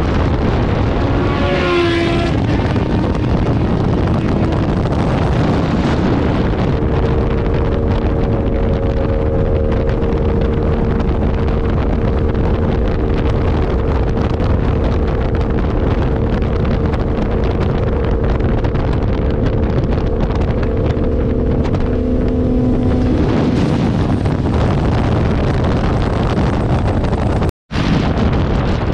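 Motorcycle on the move with heavy wind noise on the microphone. The engine holds a steady note through most of the stretch, with a brief shift in pitch about two seconds in.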